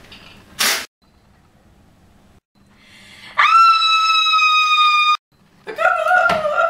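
A short, sharp burst of noise under a second in, then a woman's long, high-pitched scream held steady for nearly two seconds about halfway through. After a brief gap, a second, lower scream that wavers in pitch begins near the end.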